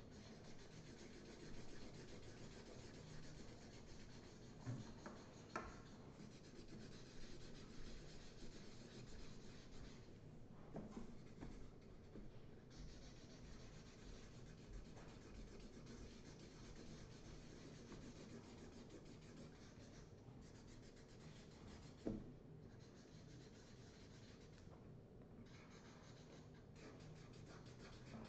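Felt-tip markers scratching and rubbing on paper as two people colour in, faint and steady with short pauses between strokes. A few soft knocks, the loudest about 22 seconds in.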